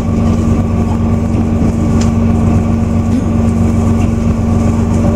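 KiHa 120 diesel railcar under way, heard from inside the car: a steady low engine drone over the rumble of wheels on rail, with a few faint clicks.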